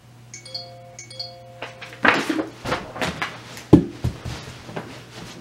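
A short electronic notification chime, several steady notes together, sounds twice in quick succession; then loud rustling of bedding and clothing as someone scrambles on a bed, with a sharp thump a little under four seconds in.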